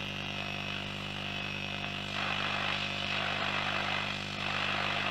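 Philips BF401A valve radio's loudspeaker giving short-wave static and hiss with a steady low mains hum underneath, as the band is tuned with no station coming in; about two seconds in the hiss grows louder. The hum is the power-supply ripple that an added filter has not cured.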